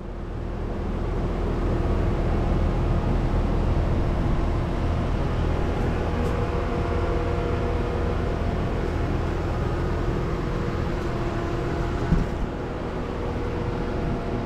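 Swimming pool equipment running: a steady machine hum with a deep rumble and a few held tones, swelling over the first two seconds and then holding even. A single brief knock about twelve seconds in.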